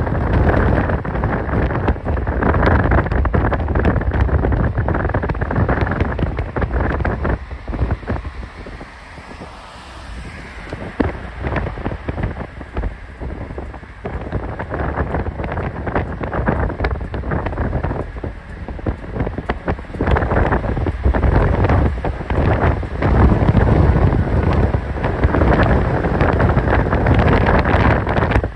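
Wind buffeting the microphone of a camera at the window of a car moving at road speed, with the car's road noise underneath. It eases for a few seconds about eight seconds in, then builds again and is loudest near the end.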